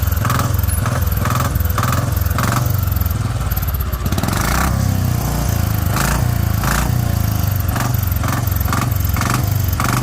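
Old-model Royal Enfield Bullet single-cylinder engine running with a repeating knock from the crankshaft. The mechanic puts the knock down to play in the main crank, with the rest of the engine sound.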